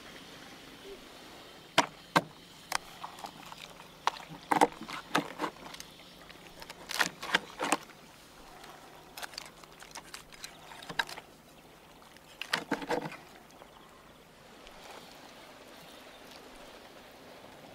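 Knife cutting into a large tandoor-roasted fish and the cooked flesh being pulled from the bones: scattered sharp clicks, snaps and crackles in short clusters, with quieter gaps between them.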